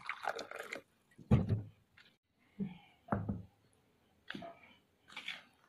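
Kitchen handling noises: a rustle at the start, then a few dull knocks and bumps, the loudest about a second and a half in and about three seconds in.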